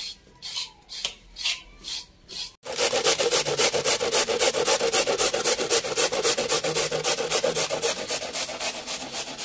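A knife scraping the skin off a carrot in a few short strokes, then, from about two and a half seconds in, carrots being grated on a stainless-steel box grater in quick, even rasping strokes.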